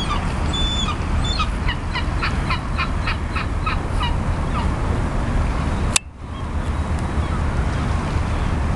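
A gull calling, a rapid series of short harsh notes at about four a second, over a steady low background rumble. A single sharp click comes about six seconds in.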